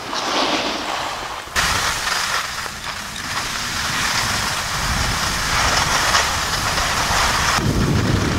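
Skis sliding and scraping over snow on a slow descent, a steady hiss that gets suddenly louder about a second and a half in, with wind buffeting the microphone underneath.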